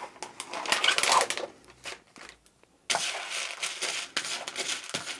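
Packaging being pulled off a plastic meal tray, crinkling for about a second. From about three seconds in, a spoon stirs and scrapes dry granola in the plastic tray: steady crunching with many small clicks.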